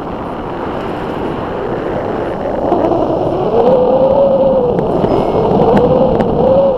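Wind rushing over the microphone of a paraglider's on-board camera in flight, growing louder, with a continuous wavering tone joining about two and a half seconds in.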